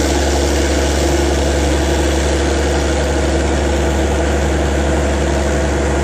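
Diesel engine of a 1960s Caterpillar 12E motor grader running at a steady speed, with a strong low hum.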